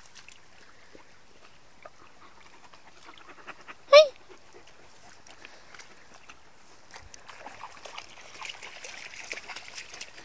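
One short, sharp animal call about four seconds in, over faint creek trickle. Near the end, a run of clicks and rustling from footsteps on the stony bank.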